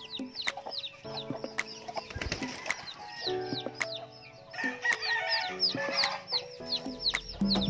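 Newly hatched chicks peeping: a run of short, high, falling chirps, several a second, with a brief noisy flurry about five seconds in.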